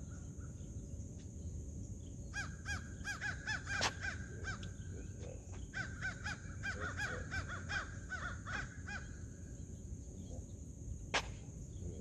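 A bird calling in quick runs of short repeated notes, from about two seconds in until about nine seconds, over a steady high hiss. A single sharp click comes near the end.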